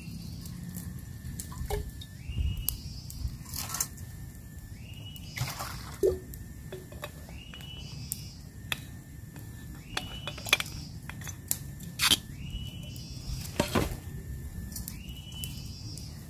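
Water poured from a stainless steel bottle into a steel bowl, then clinks and knocks of the metal bottle, its cap and the bowl being handled and set down. Behind it, a high steady tone steps up in pitch about every two and a half seconds.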